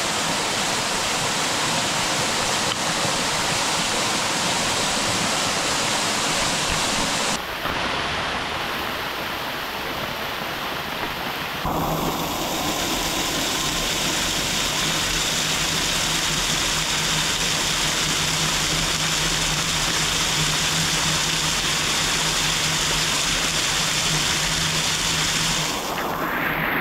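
Steady rushing noise of water, changing abruptly twice as the shots change. In the later part a low steady hum runs beneath it.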